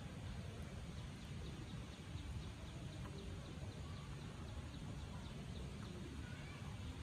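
Steady outdoor background noise with a low rumble, and faint, rapid small ticks or clicks over it.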